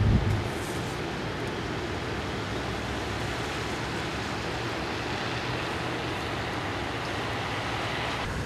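Steady road and vehicle noise: an even hiss over a low engine hum, with a brief low thump at the very start.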